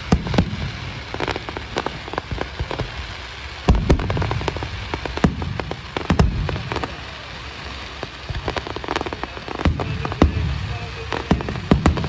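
Fireworks display going off: a run of sharp bangs and crackling, with heavier low booms about four, six, ten and twelve seconds in.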